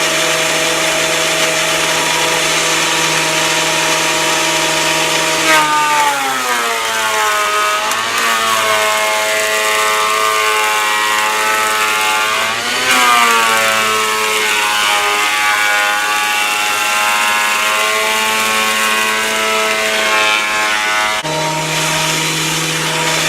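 Delta 22-540 thickness planer running. Its motor note drops in pitch about five seconds in as a rough-cut ash board feeds through the cutterhead, wavers while the board is being cut, then rises back to free-running speed near the end as the board comes out.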